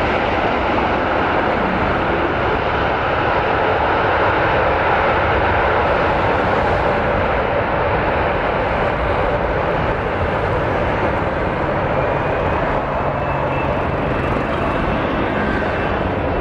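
Boeing 777-300ER's GE90 jet engines and airframe during the landing rollout after touchdown: a loud, steady rushing jet noise. A faint high whine comes in over the last few seconds.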